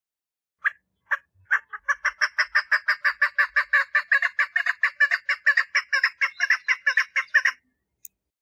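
Female chukar partridge calling for a mate: a few spaced clucking notes that speed up into a fast even run of about five notes a second, then stop abruptly.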